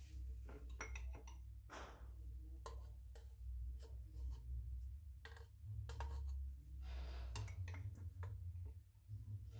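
A metal spoon clinking and scraping in a small glass jar: a run of irregular sharp clicks and taps over a low rumble.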